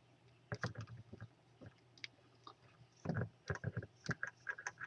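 Small plastic clicks and taps from the two ends of a screw-on power lead connector being lined up and handled, in two short flurries, about half a second in and again about three seconds in.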